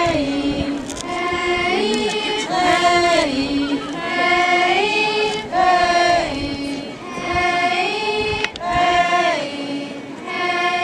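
A large group of girls singing a traditional folk song together in one melody line, chant-like phrases of held notes that step up and down in pitch.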